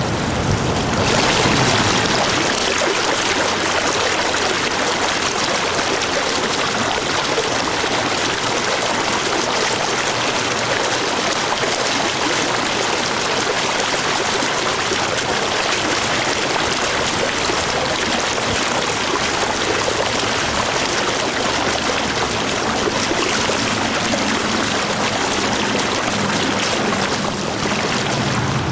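Los Angeles River water running steadily, an even, loud rush of water noise.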